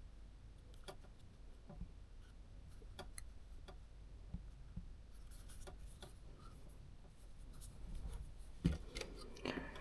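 Faint scattered clicks and light scraping of small parts and tools being handled inside an opened camera lens, with one louder knock near the end.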